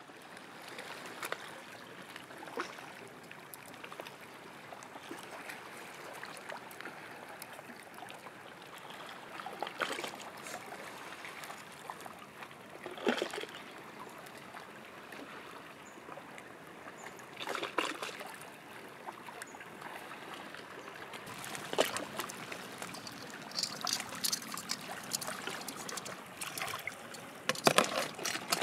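Shallow seawater trickling steadily over a wet tidal sand flat, with scattered short scrapes and knocks from hands working in the wet sand and handling shells, these coming more often and louder near the end.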